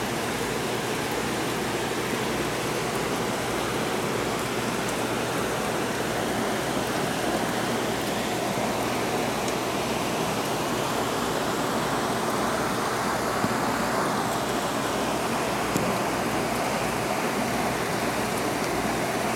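Steady, even rushing of circulating aquarium water, with a couple of small ticks in the second half.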